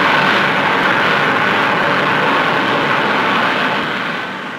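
General Electric I-A turbojet, the first American jet engine, running on test: a loud, steady rushing noise with a held whine on top, fading away near the end.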